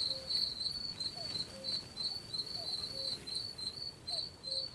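Crickets chirping steadily in quick, even pulses. Faint short, low calls recur beneath them.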